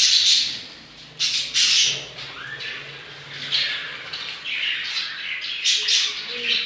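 Pet parrots squawking in repeated harsh, shrill bursts, loudest at the start and again about a second in, with more calls through the rest.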